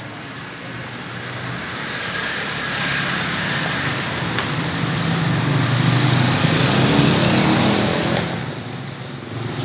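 A motor vehicle passing: its engine noise grows louder to a peak about seven seconds in, then fades. A few faint knocks of a cleaver on a wooden chopping block sound over it.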